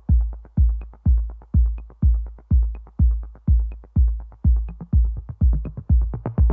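Electronic intro music: a heavy, booming kick drum about twice a second, with lighter ticks between the beats.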